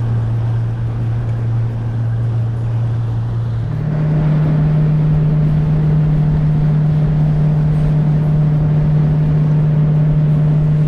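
New jet outboard boat motor running under way with a steady low drone; about four seconds in it steps up to a higher, louder pitch as the throttle is opened.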